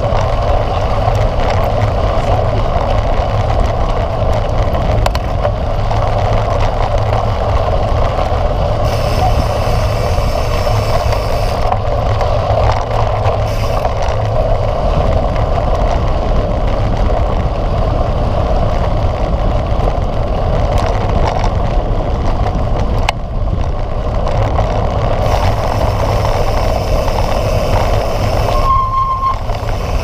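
Steady rushing and rumbling of a mountain bike rolling along a dirt road: knobby tyres on the packed earth and gravel, with wind blowing across a handlebar-mounted camera's microphone. Near the end there is a brief high tone.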